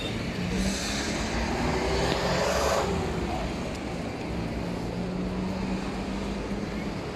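City traffic noise with a steady low hum, and a vehicle passing close by about one to three seconds in.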